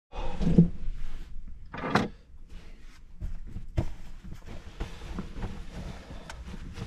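Wind rumbling on the microphone, with scattered knocks and clunks of doors or panels being handled. A short low voice-like sound comes near the start, and a sharper knock about two seconds in.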